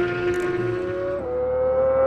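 Suzuki GSX-R1000 inline-four sportbike engines running at high revs during a drag-race launch. The note is steady and high, and jumps to a higher pitch about a second in.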